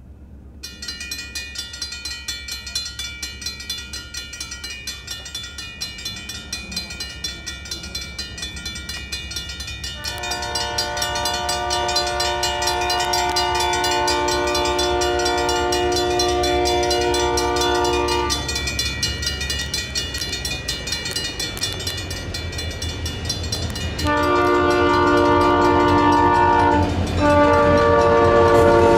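Safetran mechanical crossing bell starts ringing about half a second in with rapid, even strokes as the crossing signals activate. About a third of the way through, the approaching diesel locomotive's air horn sounds a long blast, then two more blasts near the end as a low engine rumble builds.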